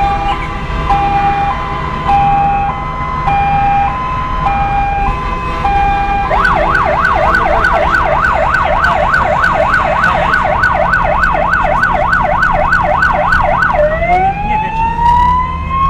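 Convoy escort siren heard from inside a vehicle cab: a two-tone hi-lo pattern switching pitch about every 0.6 s, changing about six seconds in to a fast yelp sweeping up and down about three times a second, then near the end to a slow rising wail. The vehicle's engine rumbles low underneath.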